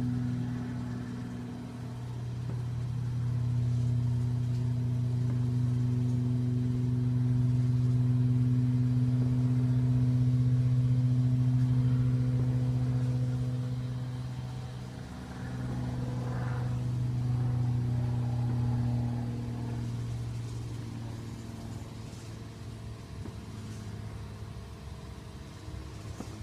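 Airplane engine droning steadily overhead, dropping briefly about halfway through and then fading towards the end.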